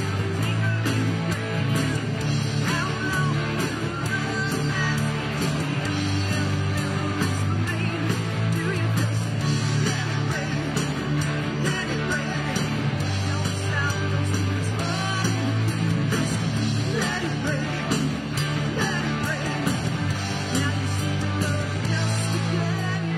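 A band playing a rock song live, with guitar prominent over a steady low accompaniment.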